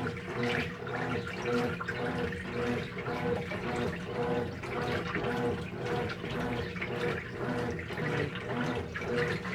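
Consul CWS12AB top-loading washing machine in its rinse cycle: clothes and water sloshing in the tub in a steady rhythm over a constant motor hum.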